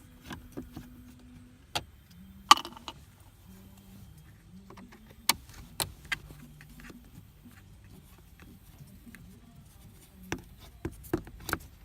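Scattered sharp clicks and light taps of a screwdriver and plastic interior trim being handled as screws are taken out of a car's center console, with a faint low hum underneath.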